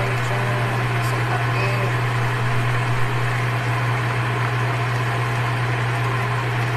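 Chicken wrapped in pandan leaves frying in oil in a covered pan: a steady sizzle, over a steady low hum.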